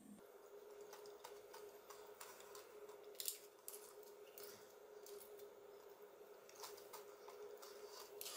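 Metal spoon cracking the caramelised sugar crust of a crème brûlée and scooping into the soft custard: scattered small crisp crackles, the loudest about three seconds in, over a faint steady hum.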